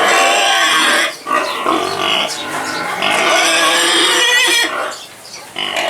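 Hungry piglets squealing loudly in shrill, wavering bouts, broken by two short lulls.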